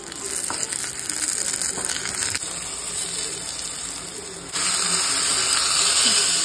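Hot oil sizzling as coconut pieces and curry leaves fry in a small pan for a tempering. About four and a half seconds in, the sizzle turns suddenly louder as the hot tempering is ladled onto the beef roast.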